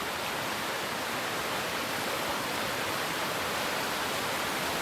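Mountain creek rushing: a steady, even roar of running water.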